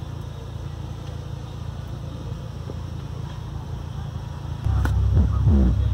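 Hip-hop track playing through a 12-inch Krack Audio KW-1204 subwoofer, heard inside the car cabin: a steady low bass hum, then a little under five seconds in the bass comes in much louder, with deep falling bass notes.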